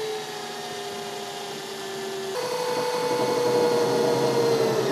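Cordless drill running a sharp 4 mm bit into the van's metal chassis, its motor giving a steady whine. About halfway through, the whine steps up in pitch and gets louder.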